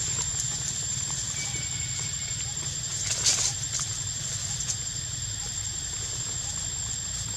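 Macaques moving about in dry leaf litter: scattered light rustles and ticks, with a louder rustle about three seconds in, over a steady high-pitched whine and a low rumble.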